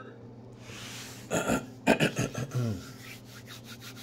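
A man's short wordless vocal sound, falling in pitch, about a second and a half in. Then bare hands rubbing briskly together in a fast run of short strokes, warming hands chilled from handling freezer-cold drinks.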